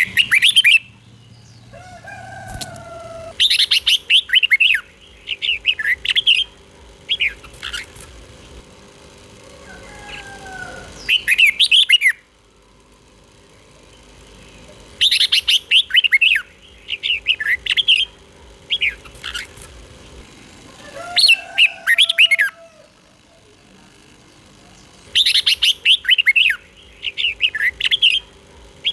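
Red-whiskered bulbul singing: about ten short phrases of quick, bright warbling notes with pauses of a second or more between them, and a few lower sliding whistles among them.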